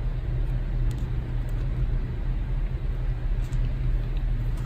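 A steady low rumble, with a few faint light clicks from photocards being handled.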